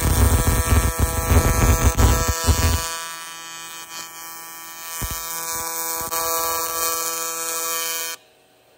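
AC TIG welding arc on aluminum, buzzing steadily at a fixed pitch: louder and rougher for the first three seconds, then a softer buzz, cutting off abruptly about eight seconds in as the arc is broken.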